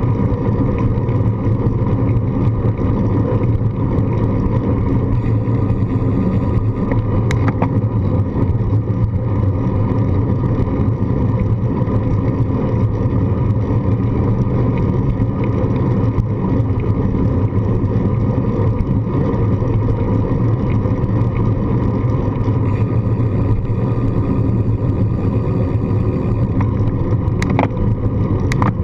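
Steady, loud rumble of wind and road vibration picked up by a GoPro riding in its housing on a bicycle's handlebars while pedalling along a paved path. A few sharp clicks cut through, one about seven seconds in and a couple near the end.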